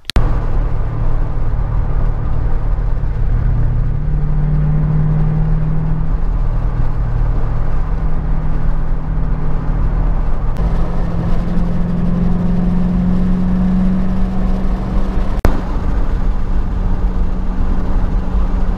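Car driving at highway speed: a steady low engine drone under road and wind noise.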